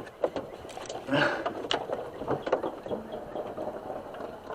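Hands working in a truck's engine bay: scattered clicks and knocks, with a brief louder scraping rustle about a second in, as the old serpentine belt is pulled out around the pulleys.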